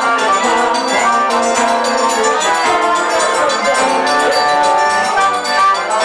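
Live forró band playing an accordion-led tune with acoustic guitar.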